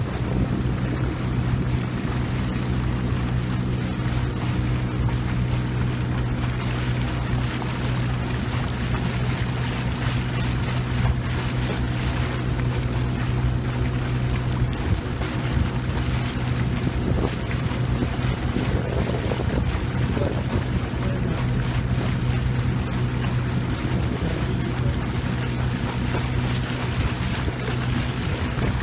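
A small boat's motor running steadily at cruising speed, a constant low hum, with water rushing past the hull and wind buffeting the microphone.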